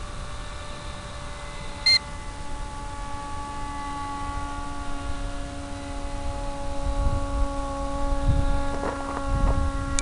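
Electric motor and propeller of an FPV flying wing, heard over the video link's audio as a steady whine of several tones that drift slightly in pitch, over low wind rumble. A short loud beep sounds about two seconds in.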